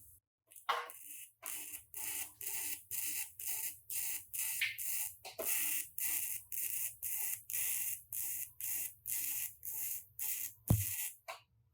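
Rhythmic rasping strokes of hand sanding on car bodywork, a little over two strokes a second, with one sharp knock near the end.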